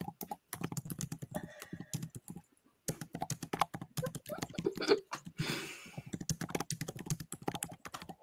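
Typing on a computer keyboard: quick, irregular keystrokes with a brief pause about two and a half seconds in.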